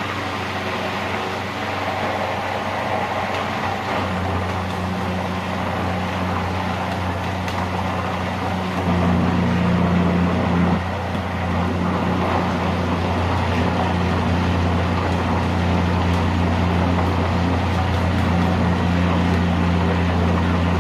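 Electric blender running steadily as it mixes thick pizza dough, a loud motor hum that grows stronger about four seconds in and again about nine seconds in.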